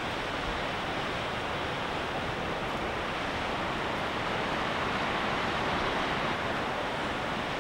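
Ocean surf: a steady rush of breaking waves with no other distinct sounds.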